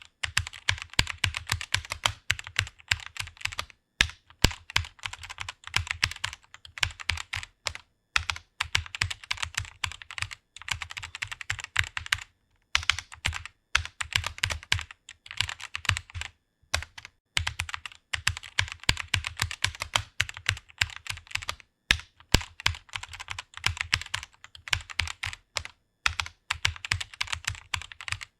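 Computer keyboard typing: fast runs of key clicks in bursts of a few seconds, broken by short pauses.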